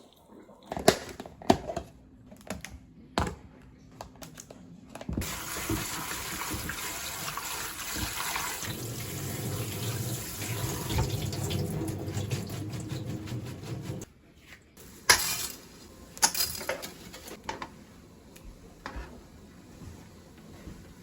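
Kitchen tap running water into the sink for about nine seconds, then shut off abruptly, with sharp knocks of dishes or utensils just before and after.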